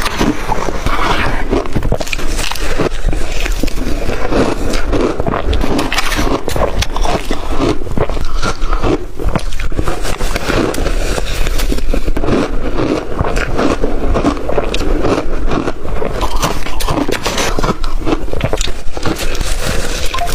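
Close-up crunching of blender-crushed ice being bitten and chewed: a dense, continuous crackle of many sharp crunches.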